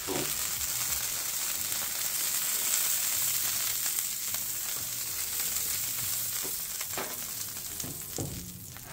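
Melted butter sizzling on a hot Blackstone flat-top griddle as it is brushed across the steel: a steady hiss that eases a little toward the end.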